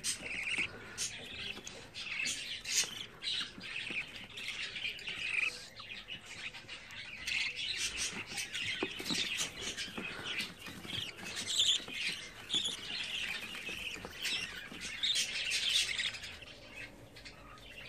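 Budgerigar chicks giving a continuous string of short, high squawking begging calls while being syringe-fed hand-rearing formula, dying down near the end.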